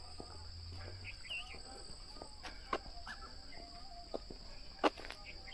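Crickets trilling in a steady high-pitched drone, with a few sharp ticks and a brief bird chirp about a second in.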